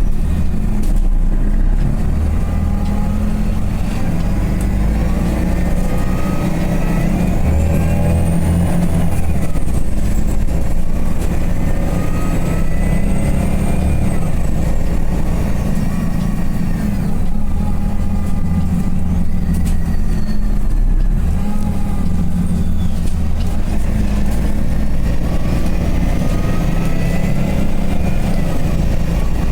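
City bus under way, heard on board: a steady low engine drone with whines that rise and fall in pitch over several seconds as the bus speeds up and slows down.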